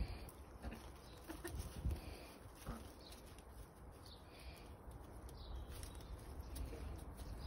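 Hens clucking softly now and then while they forage, over a low rumble.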